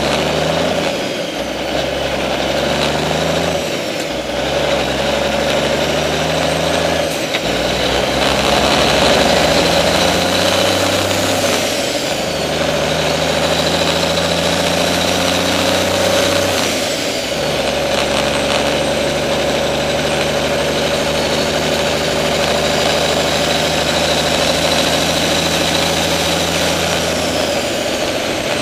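Truck engine and drivetrain under way, heard from beneath the truck beside the transmission and driveshaft, with a steady high whine. The engine's pitch steps several times as the gears are changed.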